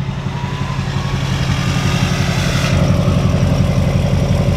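LBZ Duramax 6.6-litre V8 turbo-diesel idling through a 5-inch exhaust with a muffler: a steady low rumble with a fine, even diesel clatter. A faint rising whistle comes in about a second in, and the sound swells slightly a little before halfway.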